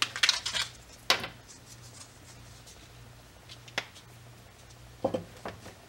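Small metal pressure-washer fittings clinking and knocking as they are picked up and handled on a wooden workbench: a quick cluster of clinks at the start, single clicks about a second in and near the middle, and a few more near the end.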